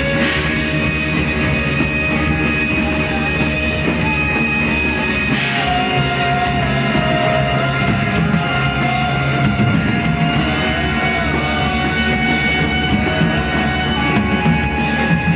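Improvised music over a dense bed of held drone tones, steady and loud. About five seconds in, a wavering melodic line enters and drifts up and down over the drone.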